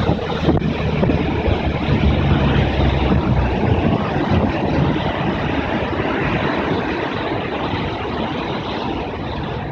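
Motor yachts running at speed: a steady rush of wind and churning wake water, with a low engine drone that fades about three and a half seconds in.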